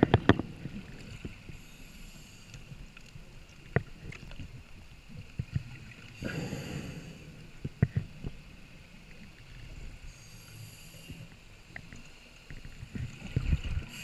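Scuba diver's breathing through a regulator heard through the camera's underwater housing: a rush of exhaled bubbles about six seconds in and again near the end, with a fainter hiss of inhalation between. Scattered knocks and taps of the housing being handled.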